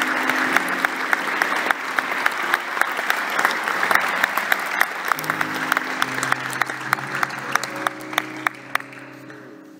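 Audience applauding, the claps thinning and dying away toward the end, with a few held low musical notes coming in underneath from about halfway through.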